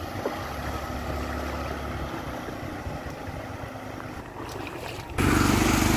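Engine of a motorised country boat running steadily on floodwater, becoming suddenly much louder about five seconds in.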